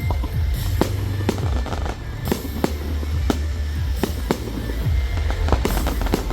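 Fireworks display: a rapid string of sharp bangs and cracks, about two a second, over loud music with a heavy bass.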